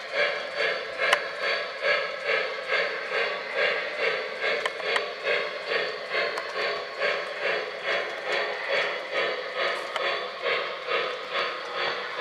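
Model 2-8-2 steam locomotive's steam sound chuffing steadily at about two chuffs a second, with a few faint clicks.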